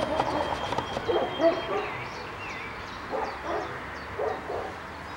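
Outdoor ambience with small birds chirping and a lower call repeated in short groups about three times.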